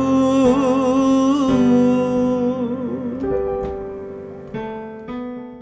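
Closing bars of a Nepali prayer song: a long held sung note with vibrato over keyboard, then sustained keyboard chords fading out near the end.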